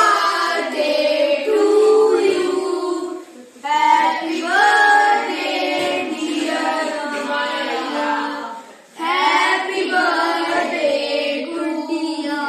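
Children's voices singing together in sung phrases, with short breaks about three and a half and nine seconds in.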